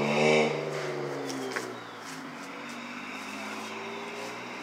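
A car driving past on the street, loudest just after the start, then fading as its engine hum drops in pitch. A fainter engine hum carries on afterwards.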